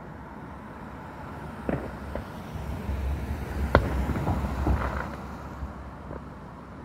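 Distant fireworks going off: scattered pops and bangs, the loudest just before the middle, with crackling and a low rumble through the middle.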